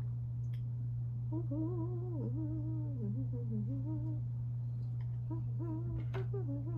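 A woman humming a wandering tune softly to herself, in two stretches with a pause of about a second between them, over a steady low electrical hum.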